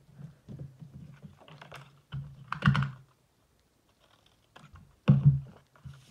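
Paper and card being handled on a craft mat: light rustling, sliding and clicking, with two louder handling sounds about two and a half and five seconds in.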